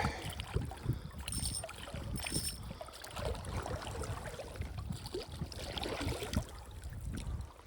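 Moving river water splashing and flowing, with irregular knocks and rustles from handling nearby, and two brief faint high tones about one and a half and two and a half seconds in.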